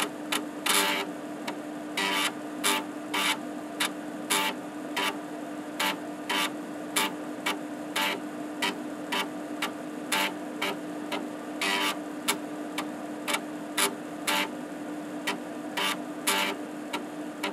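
Epson SD-800's 5.25-inch floppy drive running a random verify test on a 360K double-density disk. The head stepper makes short, irregularly spaced seek noises, about one or two a second, as the head jumps to random tracks and reads sectors, over a steady hum.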